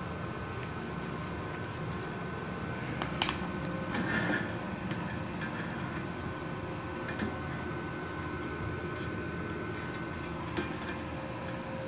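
Steady hum of an idling MultiPro MIG-MMA/TIG 160 A-SC inverter welder, with a few light knocks and a short rattle about four seconds in as thin galvanized steel pieces are moved by hand.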